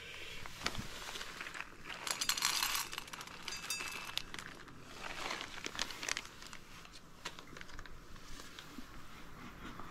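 Rustling and crinkling handling noise with scattered light clicks, loudest in a burst about two to three seconds in.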